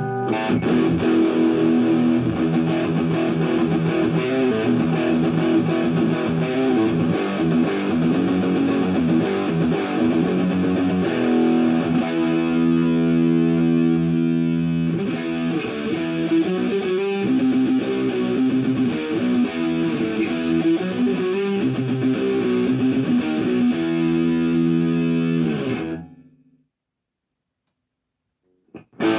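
Electric guitar, a Jackson Fusion Pro, played through an Orange Crush 35RT combo amp with its 10-inch speaker: continuous riffs and melodic lines that stop about 26 seconds in and start again just before the end.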